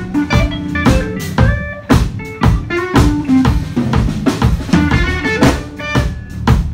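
Blues band playing live: a Stratocaster-style electric guitar plays lead lines over bass guitar and a drum kit keeping a steady beat.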